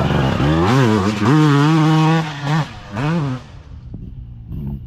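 Motocross bike engine revving hard as the bike accelerates out of a dirt corner and away, its pitch climbing and dropping with the throttle and gear changes. It fades off after about three and a half seconds.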